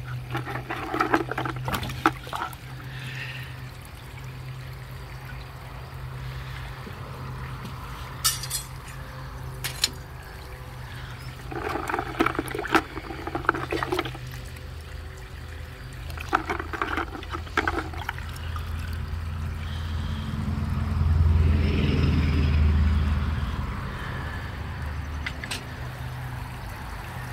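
A hand sloshing through foamy degreaser in a plastic bucket, splashing in three bouts as stone slices are felt for and lifted out, with a few sharp clicks of slices knocking together. A steady low hum runs underneath.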